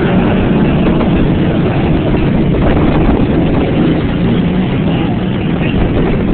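Heavy vehicle engines running steadily and loudly, without letting up.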